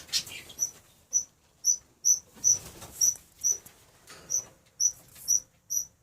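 A steady series of short, high-pitched chirps, about two a second, from a small animal, with a brief rustling clatter at the very start.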